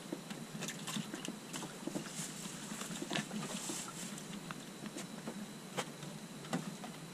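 Irregular light taps and clicks, scattered a few to the second, over a steady low hum.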